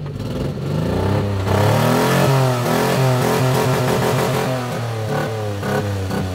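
Mini truck engine running and being revved up and down several times, just brought back to life after sitting for nearly two years and sounding new.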